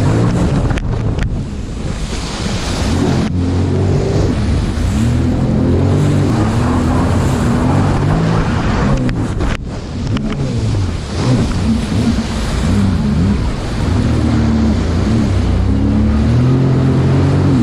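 Jet ski engine running with its pitch rising and falling as the throttle is worked, under wind on the microphone and rushing, splashing water. A few sharp knocks cut through, about a second in, near three seconds and near nine and a half seconds.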